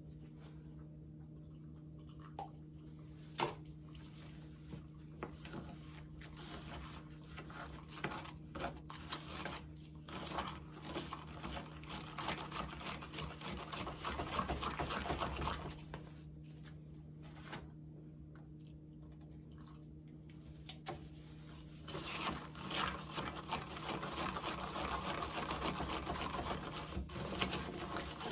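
Concrete mix and water being stirred in a plastic cup: quick, repeated scraping and tapping of the stirrer against the cup. It pauses for a few seconds past the middle, then starts again.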